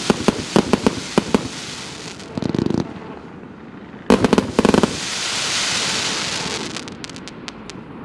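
Multi-shot firework cake (a 166-shot mixed-calibre battery) firing: a fast string of sharp shots, a quick rattle of pops about two and a half seconds in, a loud cluster of bangs about four seconds in, then a long hissing crackle of bursting stars and a few last sharp shots near the end.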